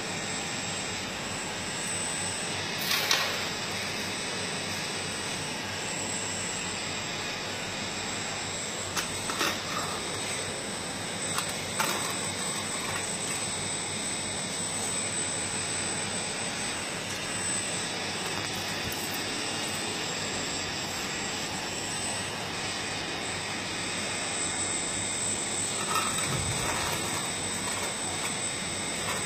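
Radio-controlled hydraulic excavator models running: a steady whir of pump and motors with a thin high whine, and a few short clatters as the bucket works the gravel.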